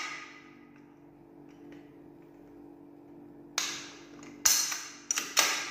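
A quiet stretch, then several sharp clacks, a few in quick succession near the end, from handling the freshly reassembled Umarex Glock 17 CO2 replica pistol with its metal slide.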